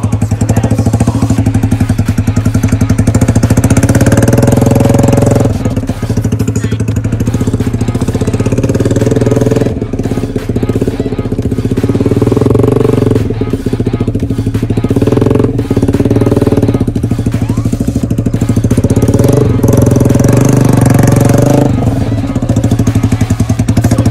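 Yamaha R15's single-cylinder four-stroke engine running through a fitted truck-style 'suos' exhaust, giving a loud, rapid exhaust beat. The revs rise and fall several times as the throttle is worked.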